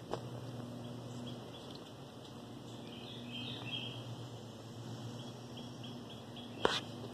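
Quiet outdoor background: a low steady hum with faint, short, high chirps scattered through it, and one sharp click near the end.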